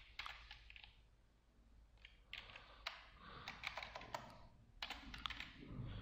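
Faint typing on a computer keyboard: quick runs of key clicks in three short bursts, with a pause of about a second after the first burst.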